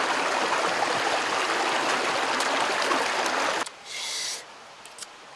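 Steady rush of a shallow rocky stream, which cuts off abruptly about three and a half seconds in; a short soft hiss follows just after.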